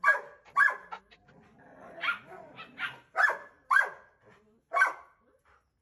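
Belgian Malinois barking: about six short, sharp barks at an uneven pace, with quieter rough vocalising between some of them.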